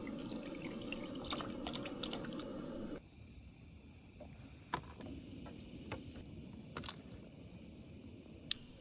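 Cooking in a pot: liquid sounds with many small clicks for about three seconds, then an abrupt drop to quieter sound with a few scattered clinks and one sharp click near the end.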